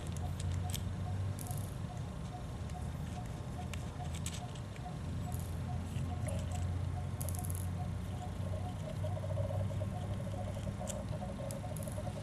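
Light clicks and scrapes of metal as the rear crankcase cover is worked off an OS 46AXII two-stroke model engine by hand, over a steady low hum.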